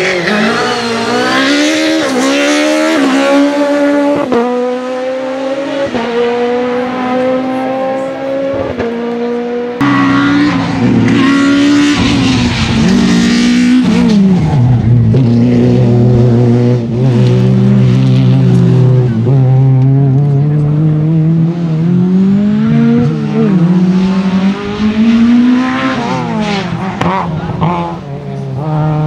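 Peugeot 306 Maxi kit car's high-revving 2-litre four-cylinder (PSA XU10J4RS) at full throttle on a rally stage, the pitch climbing and dropping sharply at each quick upshift. Several passes follow one another, with the engine easing off and building revs again in the later ones.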